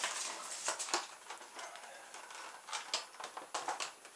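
A plastic model helicopter being lifted out of its polystyrene foam packaging: irregular scraping, rustling and clicking as plastic rubs and knocks against the foam.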